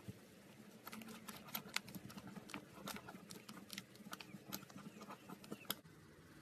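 Slime being squished and worked by hand, with irregular sticky clicks and small pops.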